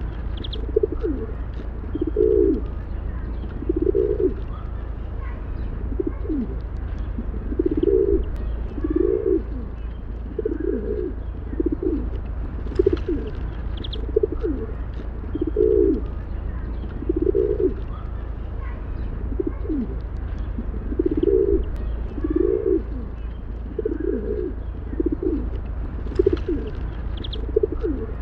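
Rock pigeons cooing over and over, low throaty coos repeating every second or two, over a steady low rumble, with a few faint high chirps.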